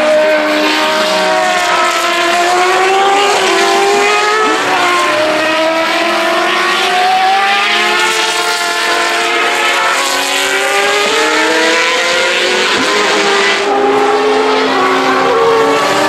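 Several open-wheel racing cars (ex-Formula One and Champ Car single-seaters) driving through a corner, their high-revving engines overlapping, each falling in pitch on the way in and rising again as it accelerates away.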